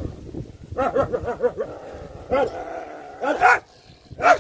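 Street dogs barking: a quick run of short yaps about a second in, a longer drawn-out call, then louder single barks near the end.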